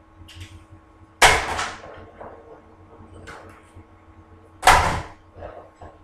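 Old floor tiles being pried up and broken off a wooden floor: two loud, sharp cracks about three and a half seconds apart, each with a brief scraping tail, and light clicks and scrapes of tile pieces between them.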